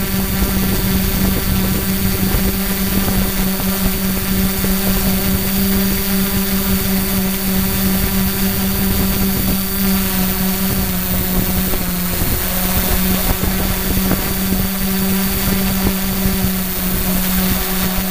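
Quadcopter's electric motors and carbon-fibre propellers whirring at a steady pitch in flight, with wind from the props buffeting the GoPro's microphone. The pitch dips briefly about twelve seconds in.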